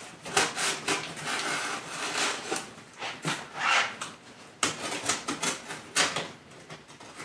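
Packing tape being picked at, slit and torn off a cardboard box: short scratches and taps on the cardboard with a few longer rasping tears of tape, the longest about a second in and another near four seconds in.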